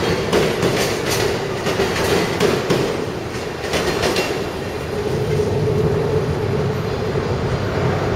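Amtrak Sunset Limited passenger train passing, its wheels clicking over rail joints in quick pairs for about four seconds before the sound settles into a steadier rolling rumble.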